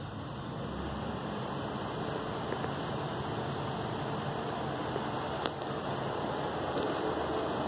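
Steady outdoor background noise, with scattered faint, short high chirps and an odd soft click.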